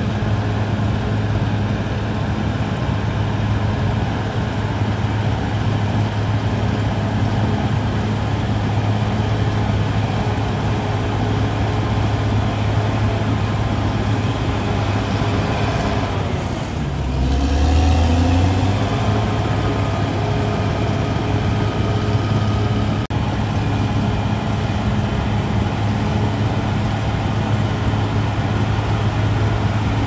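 Caterpillar D6R XL crawler bulldozer's diesel engine running steadily under load while the dozer pushes soil. About halfway through, the engine note dips and then climbs back up as the engine picks up again.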